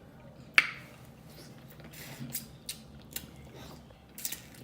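Close-miked eating sounds: one sharp, loud wet smack about half a second in, then scattered small clicks and cracks as boiled crab shell is picked apart and eaten.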